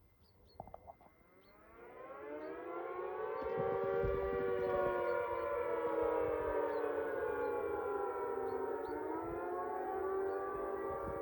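Civil defence siren being test-sounded. After a few faint clicks it winds up from silence about a second and a half in, rising to full pitch over a few seconds. It then holds a steady, slightly wavering chord of several tones that dips and climbs again near the end.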